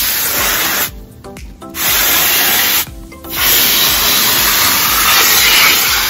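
Background music with a steady beat, dropping out sharply twice, about a second in and again about three seconds in.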